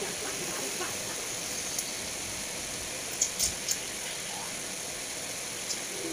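Steady background hiss with a few light clicks, three of them close together about three and a half seconds in.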